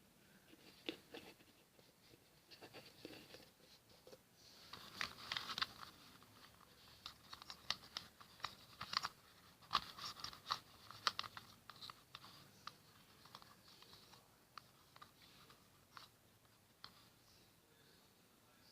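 Faint plastic clicks and scratching as a Rubik's cube and its loose pieces are handled and lubricant is rubbed in with a cotton swab. The clicks come thickest in the middle and thin out towards the end.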